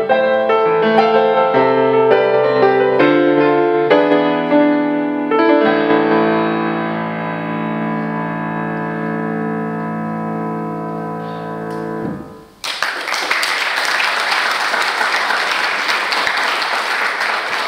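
Grand piano played with a run of chords, ending on long held chords that ring and die away about twelve seconds in. Then audience applause starts and carries on.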